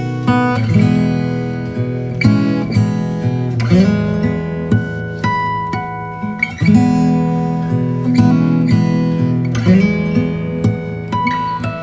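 Background music: acoustic guitar picking single notes over chords strummed every few seconds.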